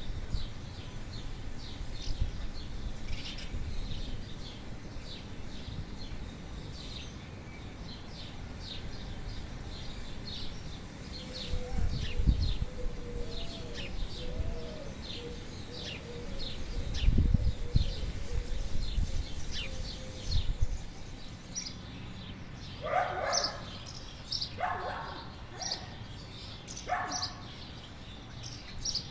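Small birds chirping and twittering over and over with short high calls. Low rumbles come about twelve and seventeen seconds in, and a few louder, lower calls follow near the end.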